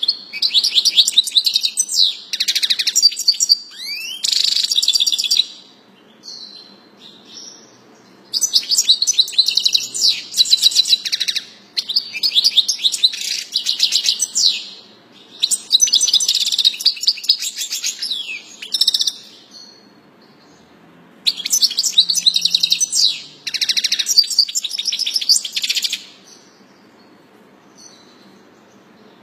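European goldfinch singing: phrases of fast, high trills and chattering notes, several seconds each, broken by short pauses and a longer pause near the end.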